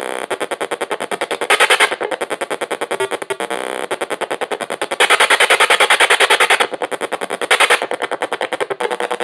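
Goregrind/noise music: a rapid, machine-like pulse of hits under harsh distorted noise, with louder bursts of noise about one and a half seconds in, from about five to six and a half seconds, and briefly near the end.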